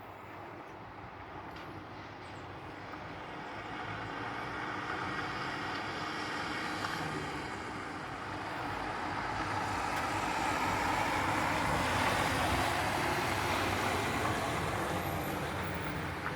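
A vehicle passing: a steady rushing noise that builds over several seconds, is loudest about two-thirds of the way in, then eases a little.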